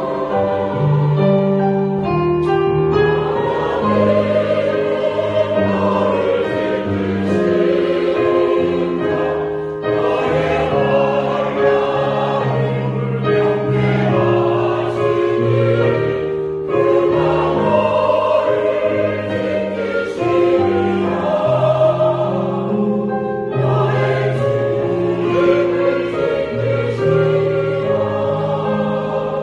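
Mixed church choir of women's and men's voices singing a Korean sacred anthem in parts, with accompaniment. The phrases are held and broken by short pauses for breath.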